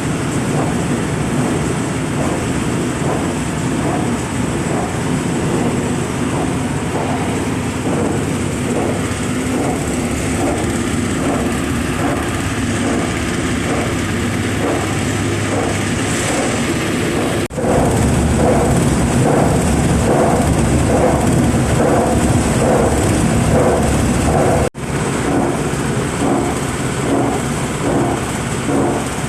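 Crusher for empty oil palm fruit bunches running: a loud, steady mechanical din with a fast, even beat. It cuts out for an instant twice and is louder after the first break.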